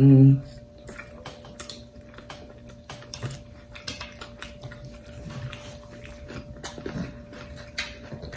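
Two people chewing mouthfuls of submarine sandwich, with many small irregular wet clicks and lip smacks.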